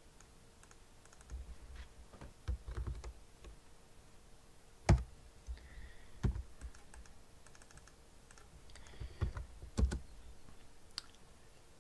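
Computer keyboard keystrokes and mouse clicks at an irregular pace, with a few heavier knocks on the desk among them.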